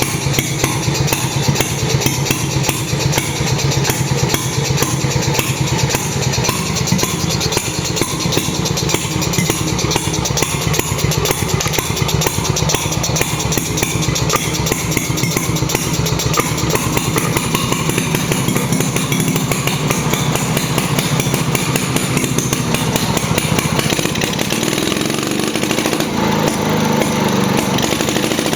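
Stuart Turner P5M single-cylinder two-stroke petrol marine engine running steadily with rapid, even firing pulses. Its note changes near the end.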